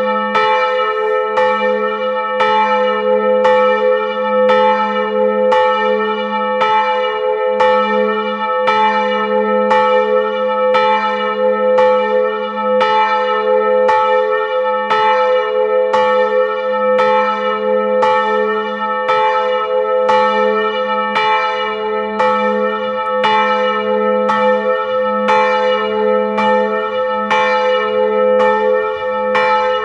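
Two swinging bronze church bells ringing together: a large 550 kg bell tuned to A and a small 30 kg bell tuned to E, both swung by linear motor drives. Their strokes come in a steady, regular train over a continuous ringing hum.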